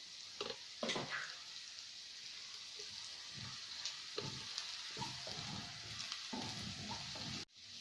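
Onion masala with chilli and turmeric powders sizzling in coconut oil in a non-stick pan, a steady high hiss, while a plastic spatula stirs and scrapes through it, the strokes coming faster in the second half. The sound cuts out briefly near the end.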